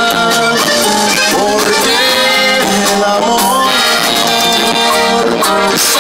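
Live regional Mexican band playing loudly: button accordion over guitars, bass and drums, heard through the stage loudspeakers.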